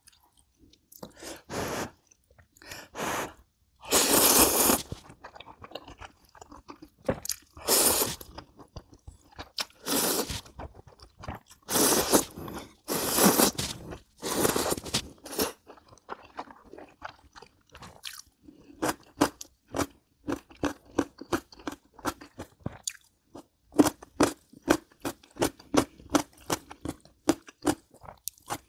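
Close-miked eating of ramen noodles: several long wet slurps in the first half, then steady rapid chewing with mouth clicks, about three chews a second.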